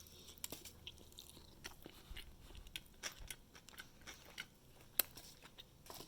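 A person chewing a mouthful of crispy fried chicken sandwich: faint, irregular crunches and crackles of the breading and pickles, with one sharper crunch about five seconds in.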